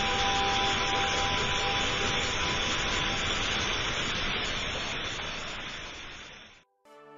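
Artificial waterfall splashing, a steady rush of falling water that fades out about six and a half seconds in. Music starts right at the end.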